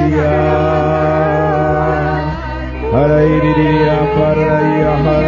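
Prayer in tongues sung as a slow chant: a voice holding long notes that slide from pitch to pitch over a steady sustained musical drone. The voice breaks off briefly a little past two seconds in and comes back with a rising slide.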